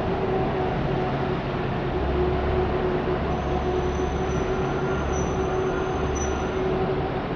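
A train running on rails, a steady loud rumble with a droning tone, and a thin high wheel squeal coming in around the middle and fading near the end.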